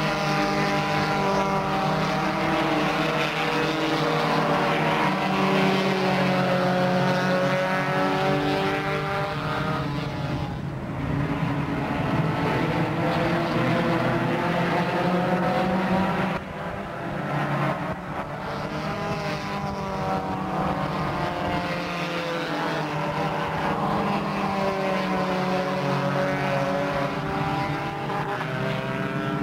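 A pack of four-cylinder stock cars racing on an oval, their engines running at high revs, several at once, with the pitch swelling and falling as they come round and pass. The sound dips briefly about halfway through, then builds again.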